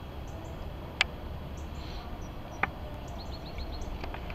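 Small birds chirping over a steady low rumble, with a quick run of five high notes a little after three seconds in. Two sharp knocks come about one and two and a half seconds in.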